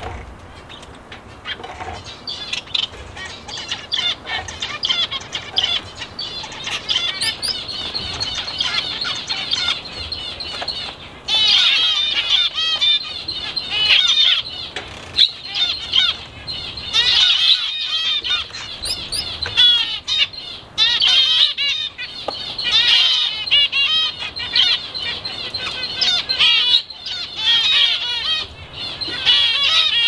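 A mixed flock of small aviary birds chirping and chattering nonstop, many short overlapping calls at once. The chatter grows louder and busier about a third of the way in.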